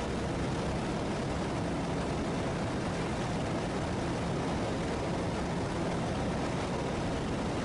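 Steady drone of a Just Aircraft SuperSTOL XL's engine and propeller in level flight, heard from inside the cockpit.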